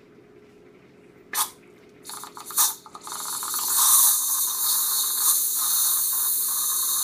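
Nitrous oxide hissing out of a whipped-cream dispenser's nozzle as its lever is pressed: a short spurt about a second in, a few more spurts, then from about three seconds in a steady loud hiss. The charged dispenser is being vented of all its gas so it can be opened and the iced coffee poured.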